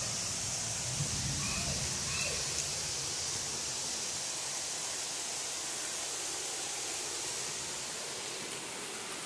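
Heavy rain falling steadily on trees and foliage, an even dense hiss, with a low rumble in the first few seconds.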